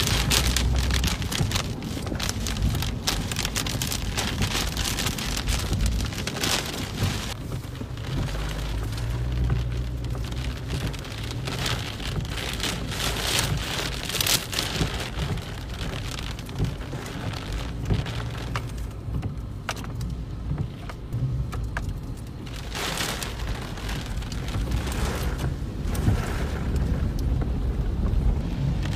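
Heavy rain hitting a car's windshield and roof, heard from inside the moving car: a dense stream of drop ticks over the low rumble of the car on the wet road.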